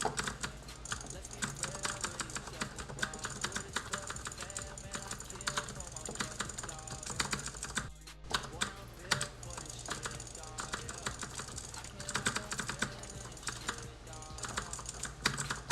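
Razer DeathAdder 2013 gaming mouse buttons clicking rapidly and irregularly, several clicks a second, with a brief pause about eight seconds in.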